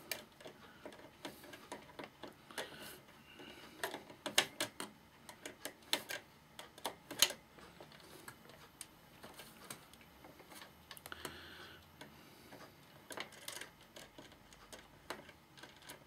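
Long-nose pliers clicking and scraping on a small metal nut as it is turned off a switch shaft on an amplifier's front panel: irregular light metallic clicks, with a few sharper ones between about four and seven seconds in.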